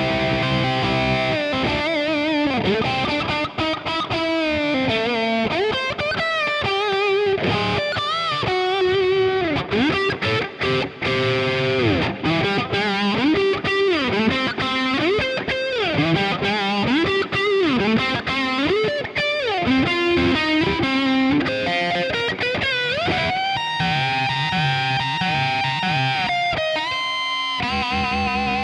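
Squier Affinity Series Stratocaster electric guitar played through distortion: a lead line full of string bends and vibrato, then held chords ringing out near the end.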